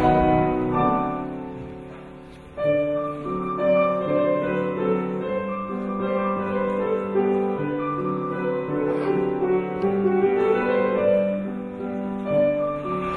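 Piano accompaniment for ballet barre exercises. A chord dies away over the first couple of seconds, then a new passage starts abruptly about two and a half seconds in and plays on at a steady level.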